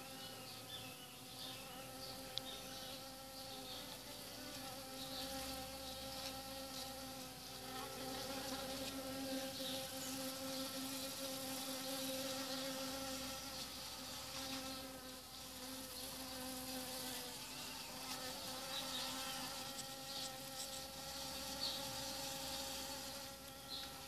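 A bee buzzing as it flies in the throat of a large white flower: a steady hum that wavers a little in pitch and loudness.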